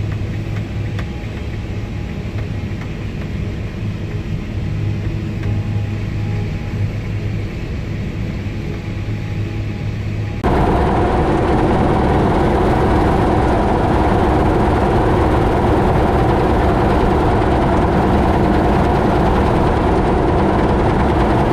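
Combine harvester running steadily with a deep engine hum. About halfway through, the sound cuts abruptly to a louder, fuller steady machine noise.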